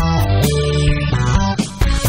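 Background music led by guitar, with bass and a regular beat.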